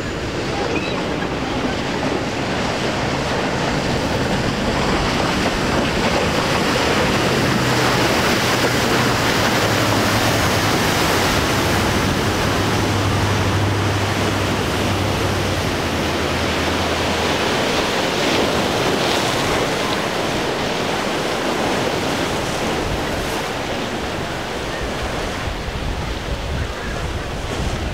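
Surf and churning wake water with wind buffeting the microphone, and the low drone of a large sportfishing yacht's engines coming through for several seconds in the middle.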